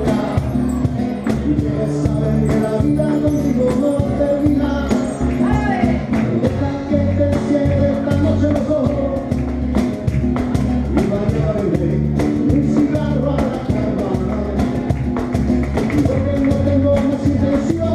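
Live band music: guitar and bass guitar over a cajon kit, with steady low bass notes and regular sharp drum strikes keeping the beat.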